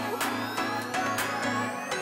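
Electronic background music with a steady beat and rising synth sweeps.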